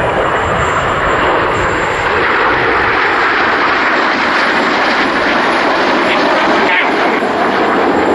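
Red Arrows BAE Hawk T1 jets in display flight overhead: steady, loud jet engine noise.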